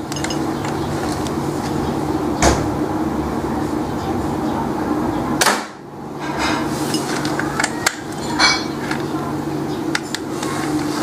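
Homemade marble gun being test-fired: a few sharp cracks several seconds apart, over a steady low hum.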